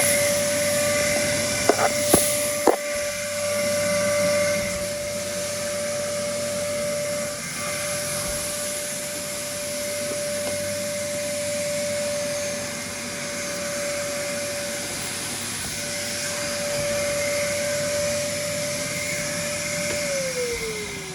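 Numatic Henry HVR200 vacuum cleaner (1100 W max) running with a steady motor whine and rushing air, with a few sharp knocks about two seconds in. Near the end it is switched off and the whine falls in pitch as the motor winds down.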